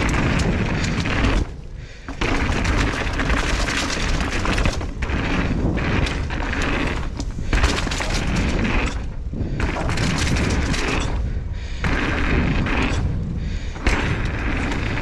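Mountain bike ridden fast down a rough downhill trail: a constant rumble of wind on the microphone and tyres on dirt, with the bike rattling. A short lull about a second and a half in ends in a thump, and there are sharp knocks in the middle and near the end.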